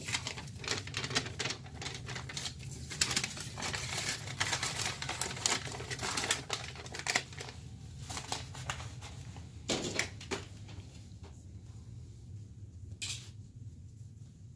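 Sheets of paper rustling and crackling as they are handled and folded, in quick, uneven clicks, thinning out to a few separate knocks near the end.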